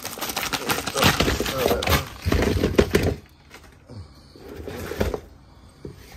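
A plastic bag crinkling and crackling loudly for about three seconds as a frozen block of boiled peanuts is shaken out of it into a pot. Then quieter rustling and a single knock about five seconds in as the frozen block settles among frozen meat chunks.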